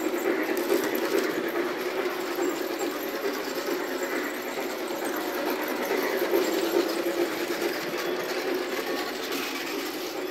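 G-scale model trains running on the track: the locomotives' electric motors, gears and wheels give a steady mechanical running noise.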